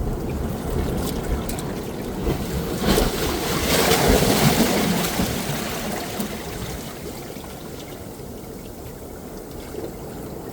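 Water and wind noise at the shore, with low rumbling on the microphone and a louder wash of surf swelling about three seconds in, then fading.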